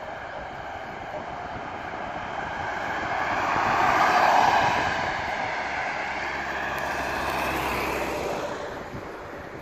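Ambulance passing close by with its siren sounding and its engine and tyres running. It grows louder to a peak about four seconds in, then fades as it drives away.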